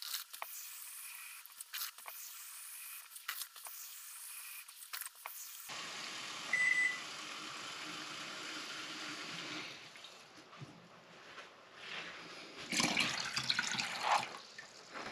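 Water being poured from a glass measuring cup into a large plastic bowl, splashing, with the loudest pour near the end. In the middle there is a steady rush of water for a few seconds.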